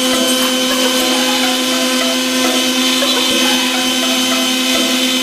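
Electric router fitted with a two-flute straight bit, its motor running at a steady high speed with a constant whine.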